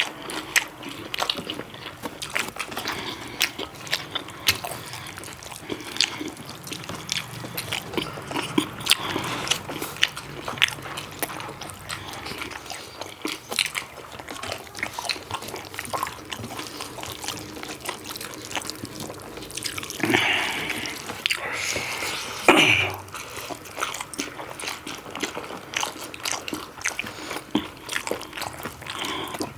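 Close-up eating sounds: wet chewing and lip-smacking on pork curry and rice, with many small irregular clicks. A couple of louder mouth noises come about twenty seconds in.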